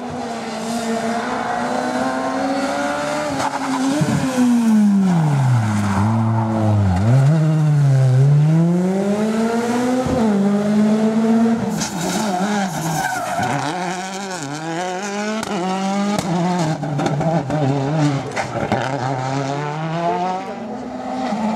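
World Rally Car engine, a 1.6-litre turbocharged four-cylinder, revving hard through the gears. Its pitch drops steeply several times as it shifts down and brakes, deepest about five to eight seconds in, then climbs again as it accelerates.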